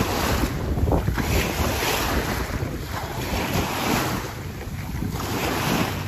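Small waves breaking and washing up a sandy shore, the wash swelling and falling back every second or two, with wind buffeting the microphone.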